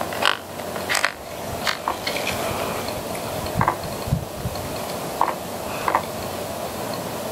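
Banded Gila monsters' claws and bodies scraping on gritty sandstone as two males wrestle: a scattering of short, irregular scrapes and clicks over a steady outdoor hiss.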